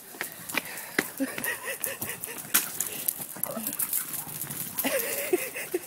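A dog whining in short pitched whimpers, more of them near the end, over scattered sharp clicks and taps.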